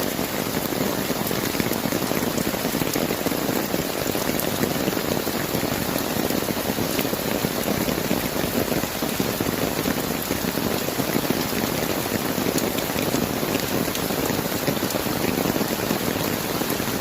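Steady rain falling, an even hiss with many small drop impacts.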